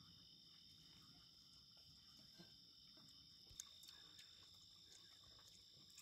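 Near silence with the faint, steady high-pitched chirring of crickets, and a few soft clicks.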